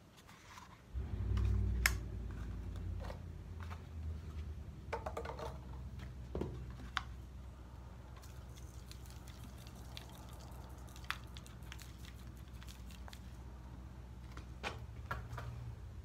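Light clinks and handling knocks of a steel tube container, a cup and a glass bottle, with liquid being poured, over a steady low rumble that starts suddenly about a second in.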